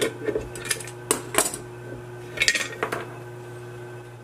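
A wrench and brass pipe fittings clinking and scraping against the metal lid of a pressure paint tank as a fitting is unscrewed: a handful of sharp clicks over the first three seconds, then only a steady low hum.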